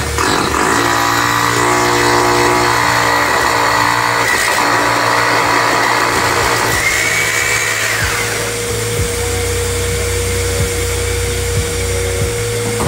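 Corded electric drill boring into a plastered wall, with a vacuum drawing off the dust through a hose-fed nozzle at the bit, over background music.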